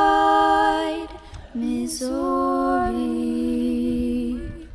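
A cappella voices singing in harmony, holding two long chords, the second stepping down in pitch partway through.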